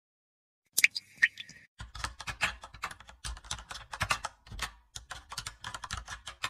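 Typing sound effect: rapid, irregular keyboard key clicks as text is typed out, with a few clicks and a brief tone about a second in.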